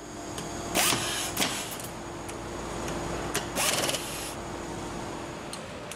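Bolts on hydraulic cylinder end flanges being tightened with a socket wrench and a handheld power nutrunner: short mechanical bursts, the longest a rapid rattle lasting under a second about three and a half seconds in, over a steady workshop hum.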